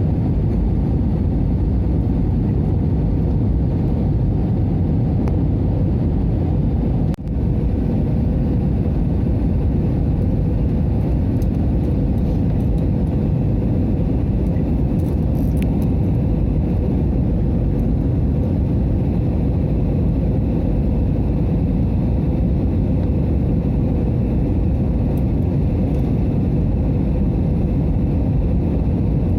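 Airbus A320 cabin noise in flight: a steady rumble of engines and airflow with a faint steady hum, briefly cut off about seven seconds in.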